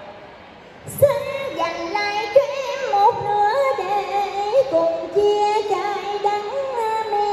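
Woman singing cải lương through a microphone and stage loudspeakers, her voice wavering and gliding in pitch on each note. She comes in about a second in, after a brief lull.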